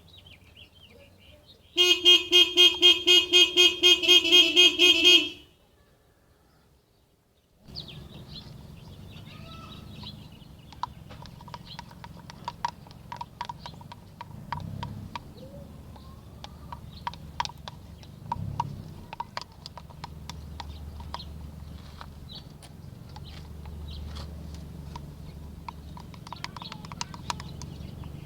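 A loud, rapidly pulsing horn-like tone sounds for about three and a half seconds near the start. After a short silence comes a low steady background with scattered small clicks and handling noises.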